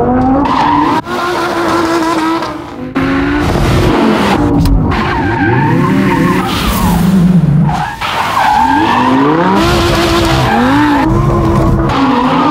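Lamborghini Huracán's V10 engine revving up and down hard through a drift, over tyres skidding and squealing on pavement. The sound breaks off and picks up again abruptly a few times, about a second in, around three seconds in and around eight seconds in.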